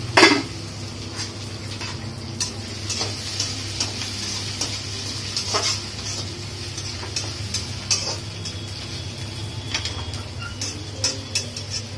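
Chopped onions and green peas sizzling in a kadai on a gas stove while a metal spoon stirs them, scraping and clinking against the pan many times; a sharp clank just after the start is the loudest sound.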